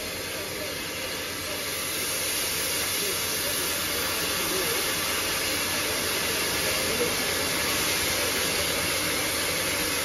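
Steam tank locomotive standing with steam hissing steadily from low down on its side, growing a little louder about two seconds in.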